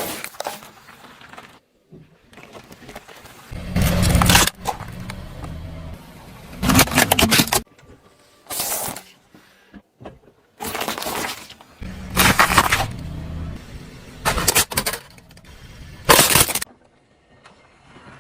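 Objects crunching and cracking as a car's tyre rolls over them, in about eight separate bursts under a second long each, with quieter gaps between.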